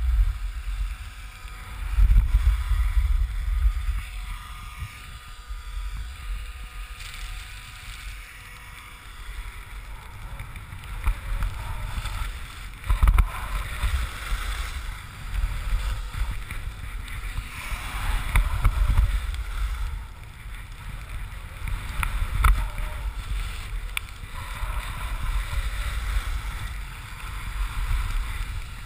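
Skis hissing and scraping over packed snow on a downhill run, with wind buffeting the camera microphone in low rumbling gusts, strongest a couple of seconds in and again around the middle.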